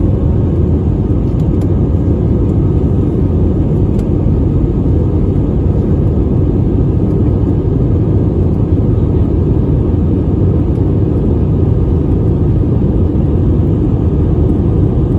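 Steady cabin rumble of an Airbus A320-family jet airliner, engine and airflow noise heard from a seat over the wing during the climb after takeoff.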